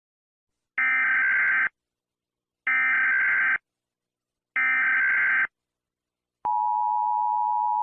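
Emergency Alert System header tones: three short bursts of harsh, buzzy data warble, each about a second long and about two seconds apart. About six and a half seconds in, the steady two-tone attention signal starts.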